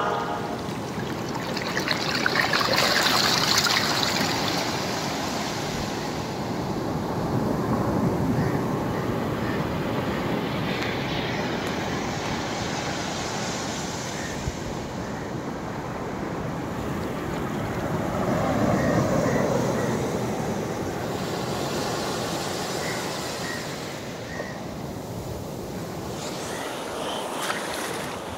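Ocean surf breaking and washing up a beach: a steady rush of water that swells and eases in slow surges.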